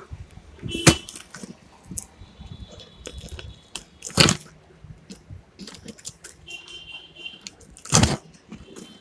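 Small metal parts and tools being handled on a workbench: scattered light clicks and clinks, with three loud sharp knocks about a second in, about four seconds in and near the end.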